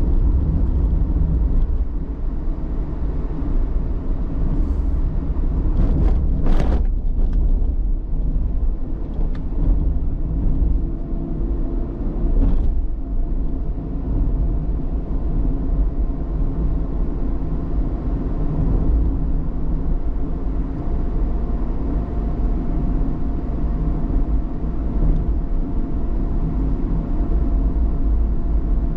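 A car on the move, with a steady low engine hum and road rumble. There are brief whooshes about six and twelve seconds in.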